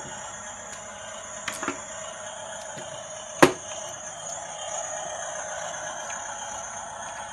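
RC bulldozer's small electric motor whining steadily, with a few plastic clicks and one sharp knock about three and a half seconds in.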